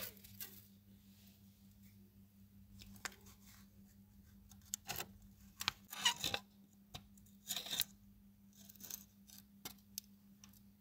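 Masking tape and a plastic model car body being handled by gloved hands: several short rustles and crinkles of tape with small plastic taps, each lasting under a second.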